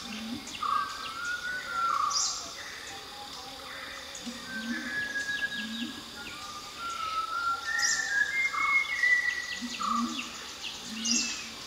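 Malabar whistling thrush singing a run of clear whistled notes that slide up and down, with sharp high chirps from other birds and some short low notes behind it.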